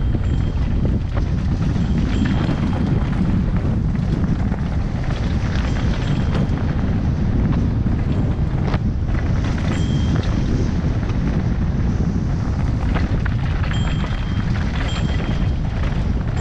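Mountain bike descending a dry dirt and gravel trail: loud wind buffeting on the bike-mounted camera's microphone over the hum of the tyres, with scattered knocks and rattles from rocks and the bike. A few short high squeals come through, around the middle and twice near the end.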